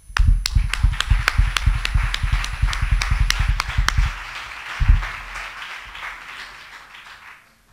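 Audience applause: many hands clapping, with sharp individual claps standing out for the first few seconds, then dying away gradually.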